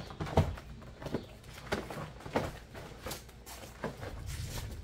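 Plastic wrapping crinkling and the fabric of a deflated air mattress rustling as it is pulled out and unfolded by hand, in a string of irregular crackles.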